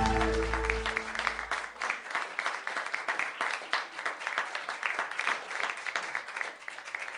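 Studio audience applause, slowly fading out. The held chord of a short music sting dies away under it in the first second or so.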